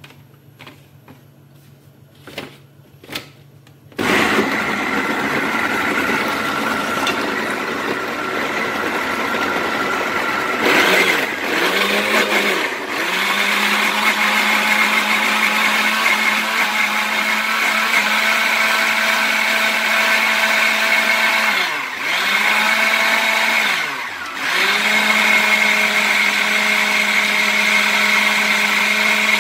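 Arzum Prostar 1000 countertop blender, preceded by two clicks, switches on about four seconds in. Its motor runs loud and steady as it purées onion and tomato, slowing briefly and picking up again three times.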